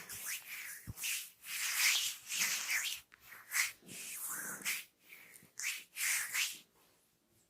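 Hands rubbing and stroking over oiled skin in a massage, a series of hissing strokes each under a second long, with a soft thump about a second in.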